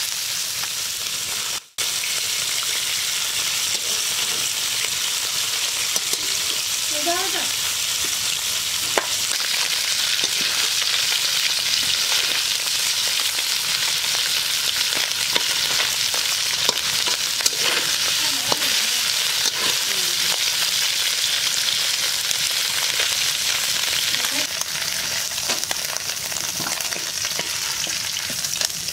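Small whole parshe fish (gold-spot mullet) deep-frying in mustard oil in a steel wok: a steady dense sizzle, with scattered clicks and scrapes as the fish are stirred. The sound cuts out for a moment about two seconds in.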